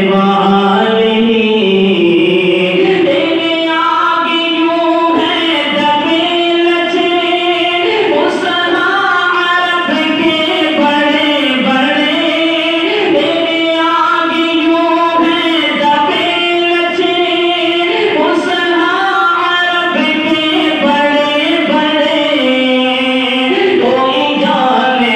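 A man singing a devotional song unaccompanied into a microphone, in long melodic lines with drawn-out held notes, amplified through a loudspeaker system.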